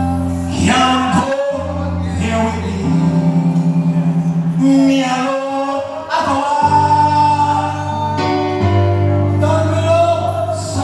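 Gospel singing over held instrumental chords that change every second or two.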